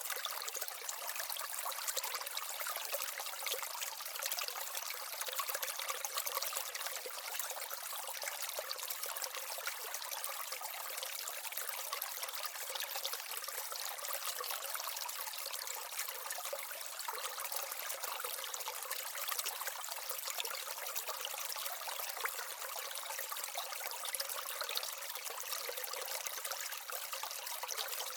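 Water in an aquaterrarium's small waterfall and stream, trickling steadily.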